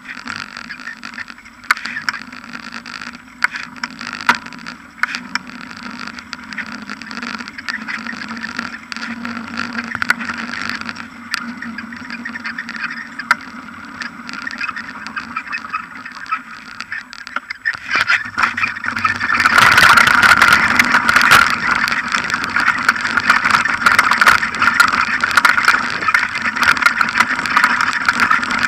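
Bicycle riding noise picked up by a front-mounted action camera: tyre and wind rush with scattered clicks and knocks from the bike and the mount. About eighteen seconds in it turns louder and rougher as the bike leaves the tarmac path for grass.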